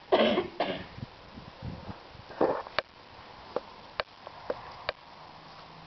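Old English Sheepdog puppies sniffing and snuffling, with a louder snuffle at the start and another about two and a half seconds in, and a few sharp clicks between.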